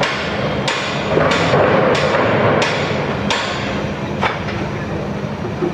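Hammer blows at a construction site, struck at a steady pace of roughly one every two-thirds of a second, over a steady hum of machinery and site noise.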